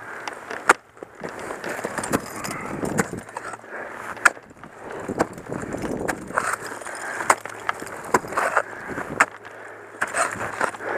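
Ice tools and crampons striking and scraping into waterfall ice, with sharp knocks every second or two between stretches of scraping and crunching.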